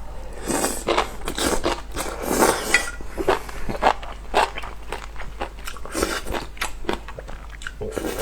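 A person eating close to the microphone: biting and chewing, with a quick, irregular run of sharp wet clicks and smacks.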